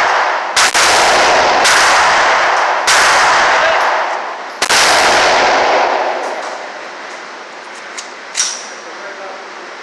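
Semi-automatic rifle fired four times, roughly a second apart, each shot loud and echoing with a long ringing decay.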